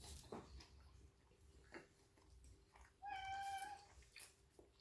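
A single drawn-out pet call, steady in pitch and about a second long, about three seconds in, amid near silence with a few faint clicks.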